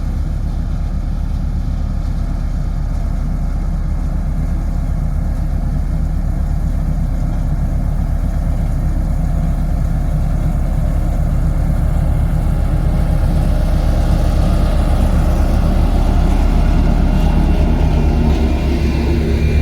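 Diesel engine of a heavy road-construction machine running steadily with a low, even throb. It grows louder and brighter over the last several seconds.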